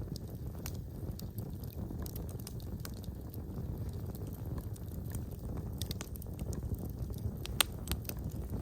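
Wood fire burning in a fireplace: a steady low rumble of flames with scattered sharp crackles and pops, one louder pop near the end.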